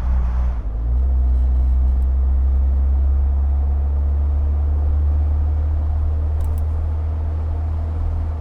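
Jeep Wrangler JL 2.0L turbo four-cylinder running through a Magnaflow Street Series stainless cat-back exhaust, a steady low exhaust note. A brighter hiss drops away just under a second in.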